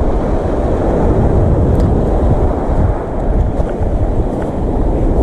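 Wind buffeting the microphone over small waves washing onto a pebble beach, a loud, steady rumble.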